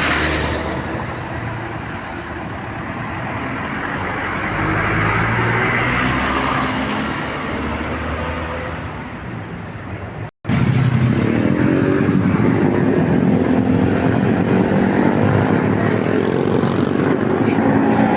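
Road traffic with heavy vehicle engines running. About ten seconds in the sound cuts out for a moment, then a louder engine runs on with a slowly rising pitch, as a heavy vehicle pulls away.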